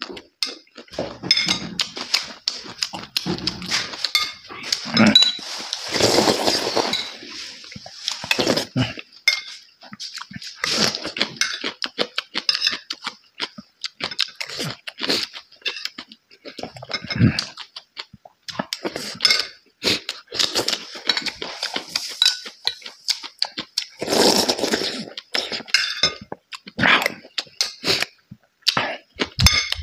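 A person eating: chewing and smacking on mouthfuls of rice and chili peppers, with a metal spoon clinking and scraping on a ceramic plate. The sounds come as irregular short clicks and wet mouth noises.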